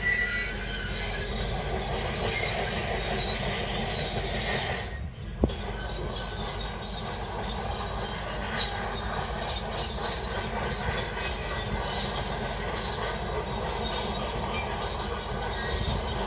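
Shantui D17 crawler bulldozer working: engine and steel tracks running steadily, with a brief drop and a single sharp click about five seconds in.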